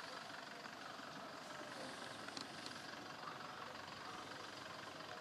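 A 4x4 pickup truck driving slowly over a ploughed dirt field, its engine and tyres heard faintly as a steady even noise.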